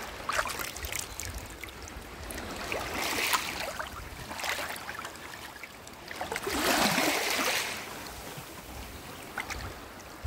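Small waves washing in and out over a shallow pebble shore, the hiss swelling and falling several times, loudest about two-thirds of the way through.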